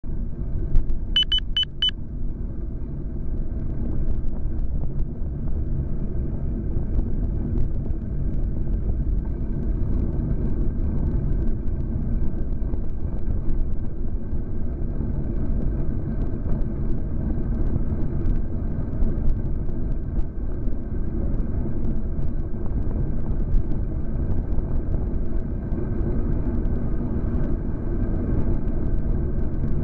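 Steady low rumble of wind and road vibration on a bicycle-mounted camera's microphone while riding. A short high electronic beep of a few quick pulses sounds about a second in.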